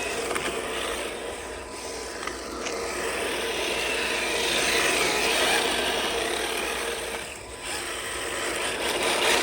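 Electric RC car driving, its motor and geared drivetrain whining and its tyres scrubbing on the ground, with the whine rising and falling as the throttle changes.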